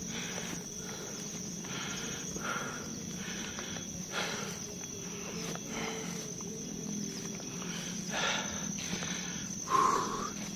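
Steady high drone of forest insects, with a hiker's footsteps on an overgrown path and his hard breathing coming as a noisy swell every second or two; he is out of breath from the climb. A short, louder tone sounds near the end.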